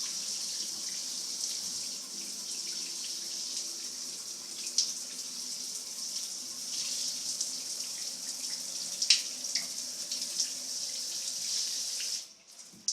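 Water spraying steadily from a newly installed shower head, shut off suddenly near the end.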